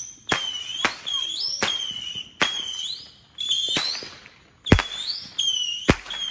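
A consumer firework going off in a rapid series: about eight sharp pops, each followed by a short high whistle that rises in pitch at its end. The loudest pop comes near the end.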